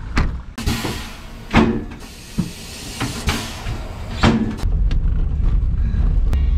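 Compressed air hissing in long bursts, with a few sharp knocks, at a tyre-repair shop. About four and a half seconds in it gives way to a car's steady low engine and road rumble heard from inside the cabin.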